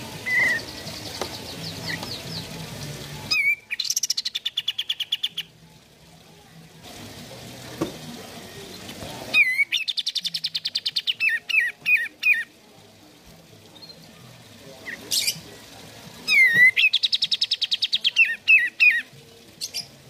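Olive-winged bulbul (kapas tembak) singing in three loud phrases. Each opens with a sharp note, runs into a fast, even rattling trill, and ends in a few scattered notes.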